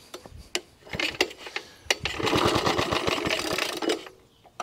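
Suffolk Corporation Mk2 cylinder mower's small petrol engine being pull-started on full choke: a few pulls on the cord with single knocks, then it fires about two seconds in and runs with a fast, even popping beat. It dies away near the end.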